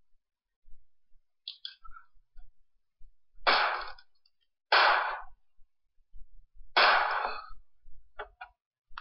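Three pistol shots: two about a second apart, then a third about two seconds later, each a sharp report with a short fading tail. Small clicks between and after the shots.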